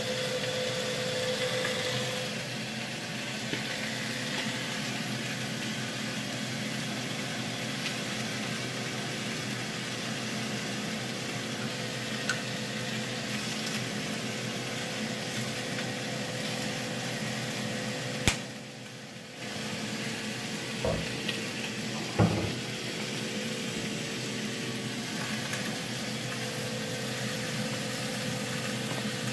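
Sliced carrots and onions frying steadily in a pan on an electric stove, a constant sizzle with a faint hum under it. A sharp click about two-thirds of the way in is followed by a brief dip in the sound, then two knocks a little later.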